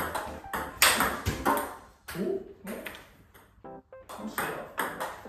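Table tennis rally: a celluloid-type ball struck back and forth with forehand drives off a paddle faced with Tibhar Hybrid MK FX rubber, giving a quick run of sharp pings of ball on bat and table, with a short lull near the middle. Background music plays underneath.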